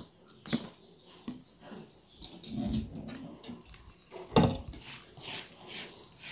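Spatula stirring and knocking against a stainless-steel pot of pempek flour dough, with a louder knock about four seconds in, then water poured into the pot from a kettle. Crickets chirp steadily in the background.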